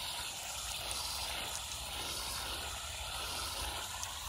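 Garden hose spray nozzle running, water spraying out in a steady hiss and spattering on concrete.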